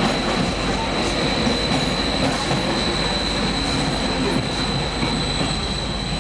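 A train running, heard from inside the carriage: a steady rumble and rattle with a constant high-pitched tone over it, easing slightly in loudness near the end.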